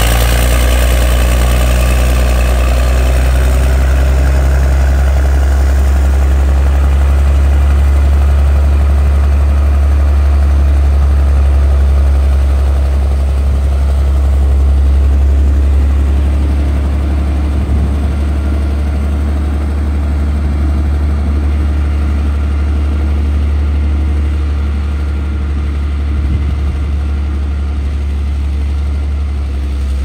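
Caterpillar D6D bulldozer's six-cylinder diesel engine running steadily as the dozer pushes hard clay, a deep continuous drone. The engine and track noise is fuller and brighter at first and eases off after a few seconds as the machine moves farther away.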